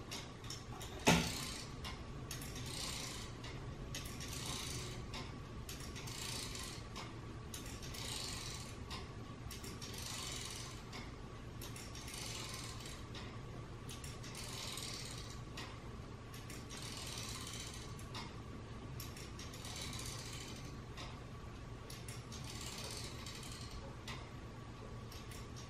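3D-printed kinetic wall sculpture's gear mechanism running as its arcs turn: a hissy, ratchet-like clicking that swells and fades roughly once a second, over a steady low hum. A single sharp click about a second in is the loudest sound.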